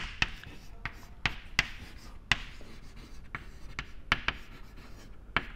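Chalk writing on a chalkboard: irregular sharp taps and short scratchy strokes as words are written out.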